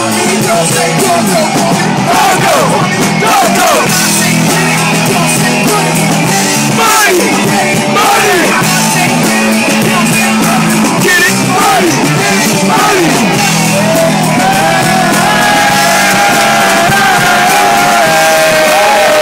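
Loud live band with drums and guitar, and a vocalist performing over it into a microphone. About three-quarters of the way through, a held, wavering high note comes in over the band.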